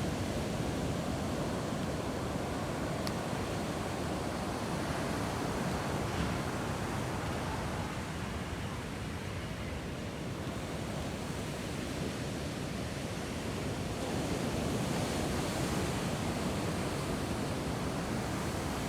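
Ocean surf breaking and washing on a sandy beach: a continuous rushing wash that swells a little near the end.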